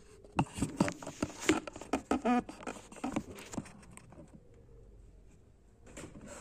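Things being handled on a desk: a quick run of light taps, clicks and knocks, with a short rapid rattle of ticks about two seconds in, then faint rustling.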